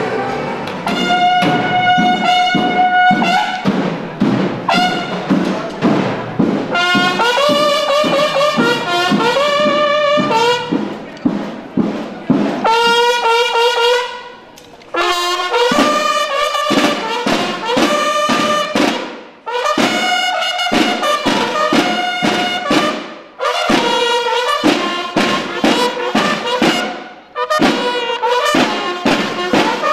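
A Mexican banda de guerra of bugles and snare drums playing a march. The bugles sound repeated phrases of a few notes, with short breaks, over steady snare drum beats and rolls.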